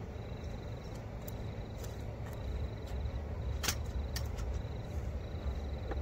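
A cricket trills in short, high-pitched bursts about every second and a half over a steady low rumble, with several sharp clicks and knocks of camping gear being handled, the loudest about halfway through.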